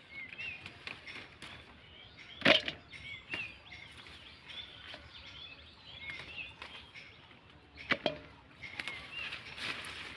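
Hands picking bean pods from leafy vines: rustling leaves and small snaps, with two sharper clicks, one about two and a half seconds in and one about eight seconds in. Birds chirp repeatedly in the background.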